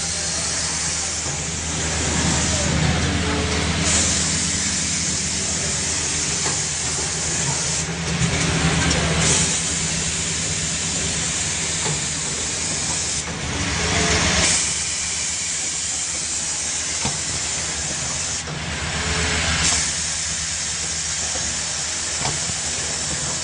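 Automatic medical suction tube assembly machine running: a steady low hum under a constant hiss of compressed air, with louder hissing surges every few seconds as its pneumatic stations cycle.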